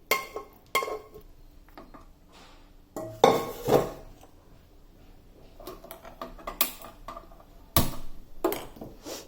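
Metal spoon knocking and scraping against metal cookware as cooked chicken and its liquid are ladled from a pressure cooker into a kadai: scattered clinks and knocks, loudest in a cluster about three seconds in.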